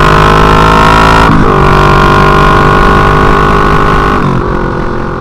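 Kawasaki ER-6f's parallel-twin engine running with its exhaust silencer removed, a loud open-pipe drone while cruising. The note dips briefly about a second in and picks up again, then fades toward the end.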